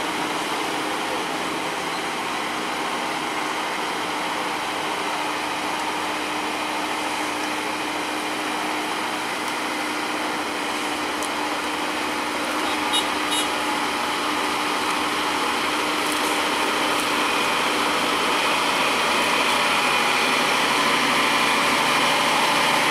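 Diesel engine of a Scania semi-trailer truck running steadily at low speed, slowly growing louder over the second half.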